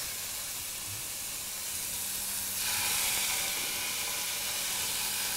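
Steady sizzle of chicken pieces frying on a hot electric plancha griddle, with a frying pan alongside; the sizzle grows louder about two and a half seconds in.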